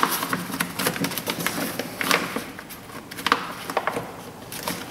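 Thin plastic door water shield crinkling and rustling in irregular crackles as it is handled and pressed back onto the door's inner panel.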